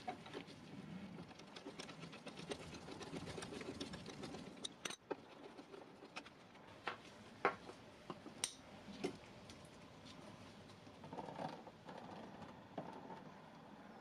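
Faint handling noise and scattered metallic clicks and taps as hand tools are worked on the scooter's rusty steel fork bracket and its bolts. It starts with light rustling and fine ticking, then half a dozen separate sharper clicks come through the middle.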